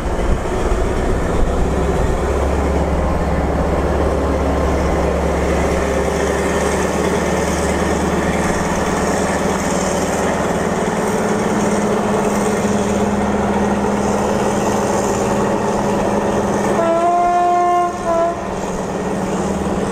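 Thai railway diesel locomotive 4120, an Alsthom AHK-class engine that the railfan takes for a Caterpillar-engined unit, pulls its train out with a steady low engine drone. About seventeen seconds in it sounds its horn for about a second, then gives a short second blast near the end.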